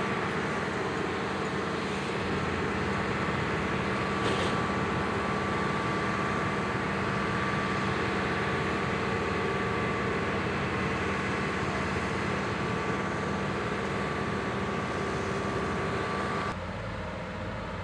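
Bitelli BB650 asphalt paver's diesel engine running steadily under a constant high whine, with one brief noise about four seconds in. Near the end the sound switches abruptly to a lower engine rumble.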